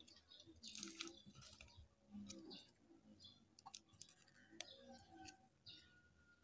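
Near silence: quiet room tone with a few faint clicks.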